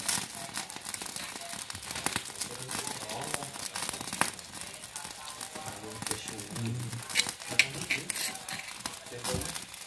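Chopped chillies and shallots sizzling and crackling in hot oil in a wok, with irregular pops throughout.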